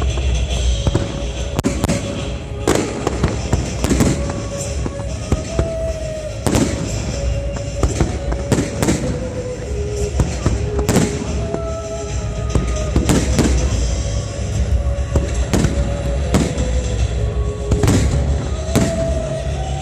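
Fireworks display: aerial shells bursting in a rapid, irregular string of bangs, a dozen or more, some in quick clusters. Music with slow, held melody notes plays throughout under the bangs.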